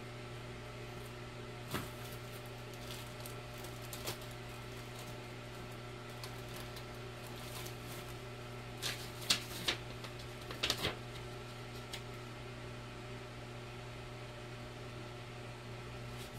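Steady background hum with a few short rustles and clicks from paper and packaging being handled, most of them about nine to eleven seconds in.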